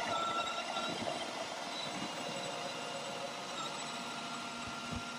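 Electric trailer jack motor running steadily as it lifts the motorcycle-loaded carrier platform.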